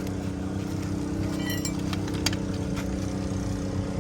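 An engine idling with a steady hum. A short metallic clink rings about one and a half seconds in, followed by a sharp click a little later, as the tyre-change tools are handled.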